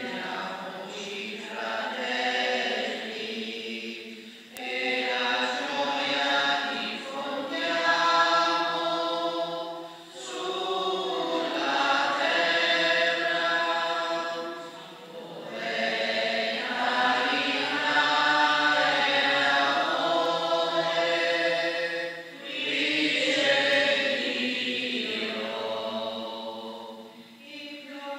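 Voices singing a communion hymn together in long sung phrases, each five to six seconds, with short breaks for breath between them.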